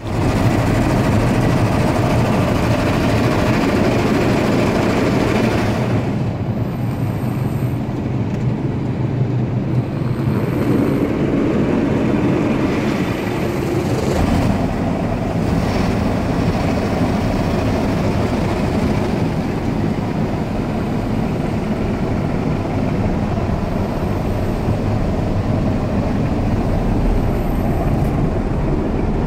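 Automatic car wash running: a steady rush of spraying water and machinery, changing in character about six seconds in and again around fourteen seconds in.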